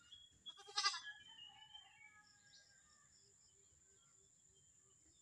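A male native Visayan goat bleating once: a short, quavering call about half a second in.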